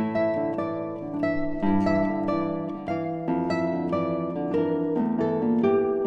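Classical guitar trio playing: three nylon-string guitars plucking a running stream of notes, several a second.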